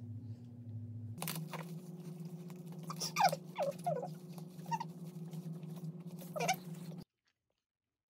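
A newborn baby gives about five short, falling whimpers and squeaks while being handled, over a steady low room hum. The sound cuts off abruptly about seven seconds in.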